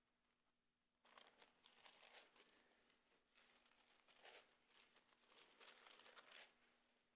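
Faint rustling of thin Bible pages being turned by hand, starting about a second in and coming in several flurries until shortly before the end.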